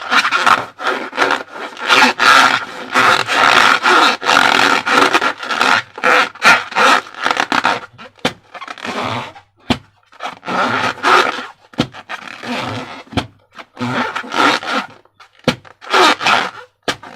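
Slime being squeezed and worked by hand close to the microphone: irregular wet squelching and scraping with many sharp crackles, thinning into separate squishes about halfway through.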